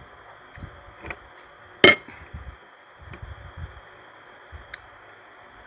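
Metal cutlery on a ceramic bowl while eating: one sharp, loud clink about two seconds in, a few fainter clicks, and soft low knocks of handling in between.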